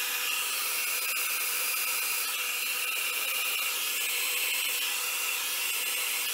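Small handheld blow dryer running steadily, blowing air across wet alcohol ink to push and dry it.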